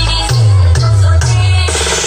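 Electronic DJ music played loud through a horn-loaded bass speaker and 15-inch top speakers, with three quick bass notes that each slide down in pitch.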